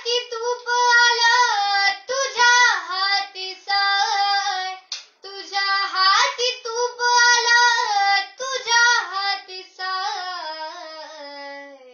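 Young girl singing a Marathi song unaccompanied, in a clear high voice, with a short pause about five seconds in and a long held note that steps down near the end. The drum on her lap is not played.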